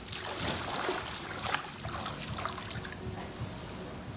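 Pool water splashing and lapping as a swimmer tips under headfirst into a handstand, with irregular splashes loudest about a second in.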